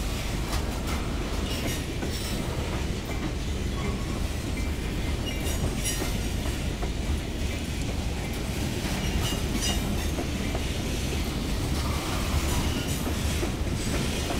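Freight train of covered grain hopper cars rolling past at steady speed: a continuous rumble of wheels on rail with rhythmic clicking over the rail joints. Faint high wheel squeals come in briefly about halfway through and again near the end.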